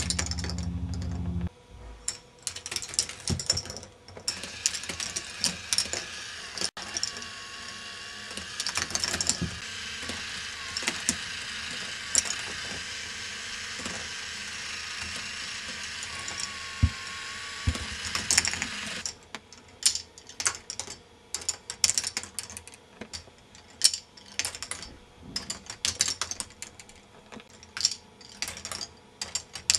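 K'nex ball machine running: plastic balls and parts clicking and clattering along the tracks in many sharp, irregular clicks. A steady low hum stops about a second and a half in, and a steadier rattling noise runs from about four seconds in until about nineteen seconds.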